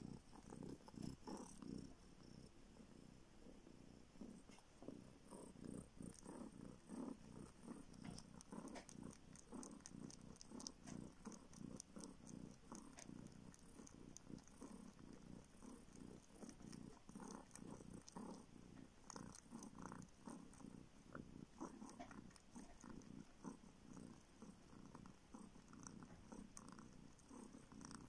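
Kitten purring faintly and steadily while it suckles, with soft rhythmic clicks from the suckling.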